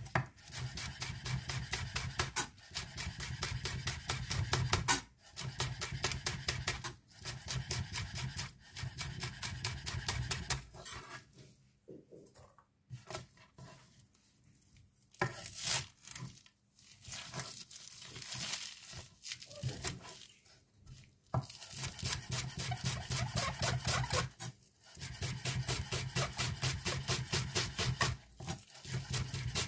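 Zwilling chef knife rapidly chopping fresh greens on a cutting board: fast runs of strokes broken by short pauses, with slower, sparser cuts through the middle stretch.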